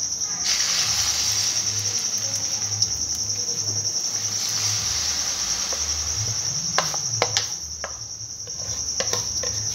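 Ground soaked bakla (broad bean) paste hitting hot desi ghee in a kadhai and sizzling steadily, easing off about seven seconds in, followed by a few sharp clicks. A steady high-pitched trill runs underneath throughout.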